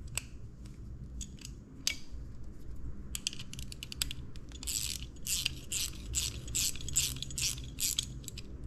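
Small ratchet wrench clicking as a freshly Loctited bolt is turned into the aluminium brake-side motorcycle rearset: a few scattered clicks at first, then quick runs of ratchet clicks in strokes about twice a second over the second half.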